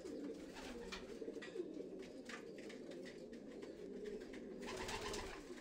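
Racing pigeons cooing steadily in their loft, several low overlapping coos, with a few faint ticks and rustles from the birds.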